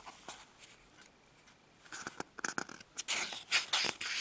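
Pages of a paperback comic book being handled and turned: a few faint clicks at first, then papery rustling and scraping for about the last two seconds.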